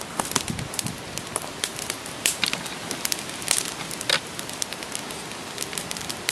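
Campfire of sticks and branches burning briskly: a steady hiss of flame with frequent irregular sharp crackles and pops.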